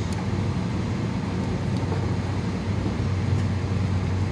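Steady low hum and rumble of running machinery or traffic close by, with a faint metal click of wrenches on the filter drier's flare nut.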